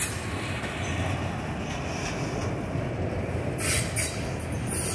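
Empty autorack freight cars rolling slowly past on steel rails: a steady rumble of wheels on track. A couple of brief, sharper high-pitched noises come near the end.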